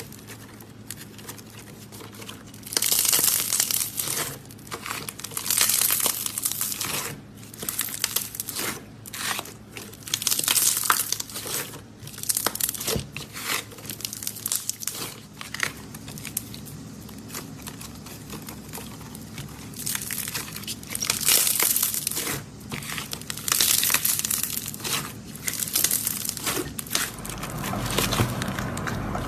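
Mirror putty being squeezed and pressed by hand, a run of crackling bursts full of small sharp pops as trapped air bubbles burst. Near the end a steadier, duller sound takes over.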